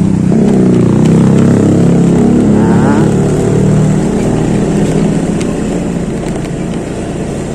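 Motorcycle engine running as it is ridden. It speeds up during the first second or so, then holds and gradually gets quieter as the bike eases off.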